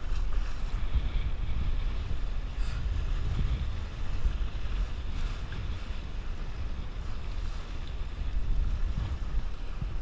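Strong wind buffeting the microphone as a low, steady rumble, over the hiss and splash of water rushing along the hull of a Sunfish sailboat on a fast reach in heavy wind.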